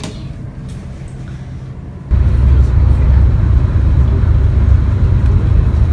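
Low rumble of road and engine noise inside a moving bus, starting abruptly about two seconds in. Before that, a quieter low steady hum.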